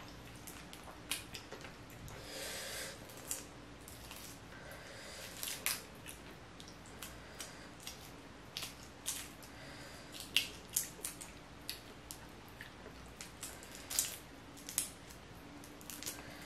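A sauce-coated boiled shrimp being peeled by hand: scattered crisp cracks and clicks of shell breaking away, with soft wet squishing.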